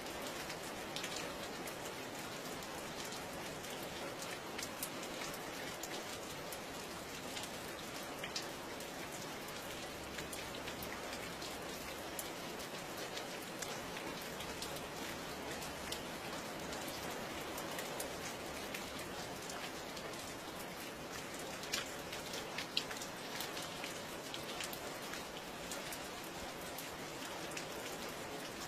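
Steady rain falling, with a constant hiss and many individual drops ticking sharply on a surface, a few louder drip hits about three-quarters of the way through.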